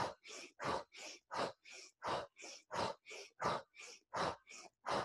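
A person breathing fast and rhythmically in an energizing breathwork exercise, in through the nose and out through the mouth. There are about three breaths a second, a louder one and a softer one alternating.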